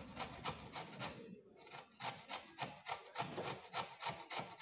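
Carrot being grated on a metal box cheese grater: quick, even rasping strokes, about five a second, with a brief pause just over a second in.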